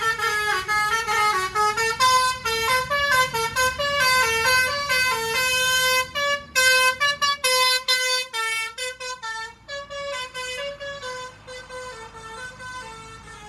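Bus 'telolet basuri' musical horn playing a fast melody of quick, stepped notes. It goes faint after about eight seconds.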